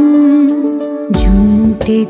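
Christian devotional song sung by a woman with instrumental accompaniment: a long held note, then deep bass and fuller backing come in about halfway through.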